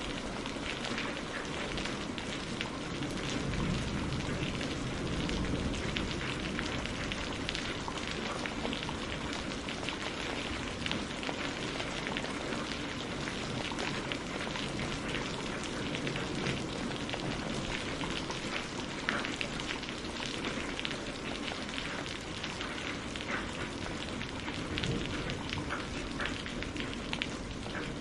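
Steady rain falling on a greenhouse roof, with many individual drops ticking over a continuous hiss.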